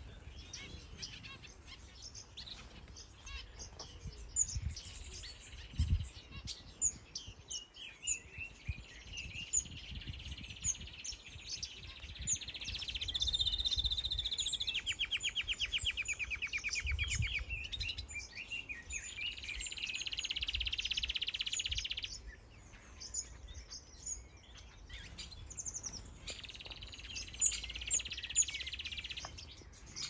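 A domestic canary singing a long, continuous warbling song with a rapid trill in the middle, breaking off about two-thirds of the way through and starting again near the end. Short high chirps from many small aviary finches run underneath.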